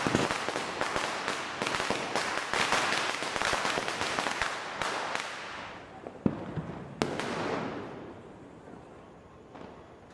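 Diwali firecrackers going off in a rapid, dense crackling string that thins out about five seconds in. A single sharp bang follows about a second later, then another burst that fades away.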